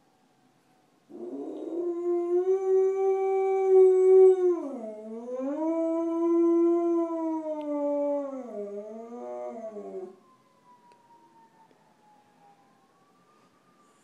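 A dog howling in long held notes for about nine seconds, set off by a fire truck siren. The pitch dips and climbs back about midway, and the howl wavers before cutting off. The faint siren slides slowly up and down before and after the howl.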